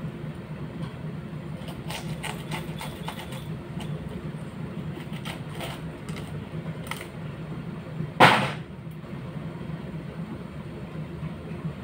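Chef's knife slicing through a hand-held head of cabbage: a run of short, crisp crunches, with one louder, sharper noise about eight seconds in, over a steady low hum.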